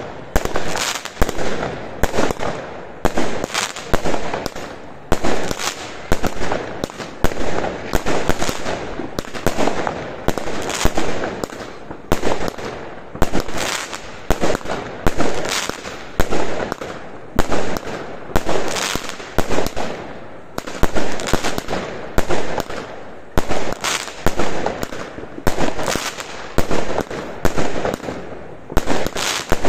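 Consumer firework battery (cake) set on the ground firing shot after shot in a steady series, about one a second, each sharp bang trailing off briefly as the shell bursts overhead.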